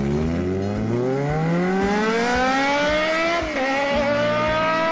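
Racing car engine revving up through the gears: a rising whine that drops briefly at a gear change about three and a half seconds in, then climbs again.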